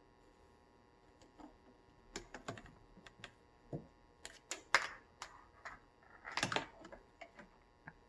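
Irregular taps, clicks and scuffles of kittens playing with a fish-cake skewer cat teaser toy, with a longer scuffling rustle about six seconds in.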